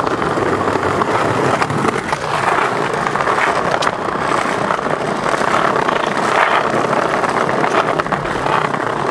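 Skateboard wheels rolling steadily over rough paving, with scattered small clicks.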